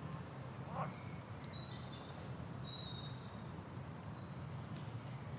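Steady low outdoor background noise with birds calling: a short rising call just under a second in, then several brief high chirps and whistles over the next two seconds.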